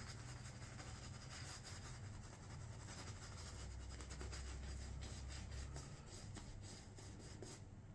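Shaving brush being worked over the face to build shave soap lather: a faint, continuous scratchy rubbing made of many quick brush strokes.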